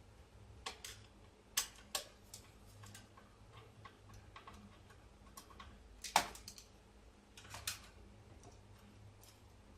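Irregular small clicks and taps of computer case parts and hardware being handled during disassembly, with the sharpest knock about six seconds in.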